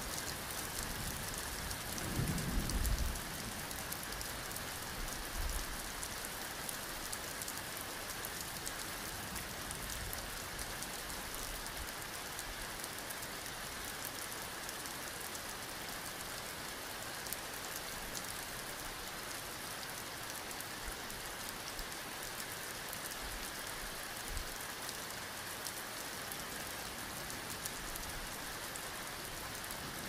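Steady rain-like hiss with a fine crackle throughout, and a brief low rumble about two to three seconds in.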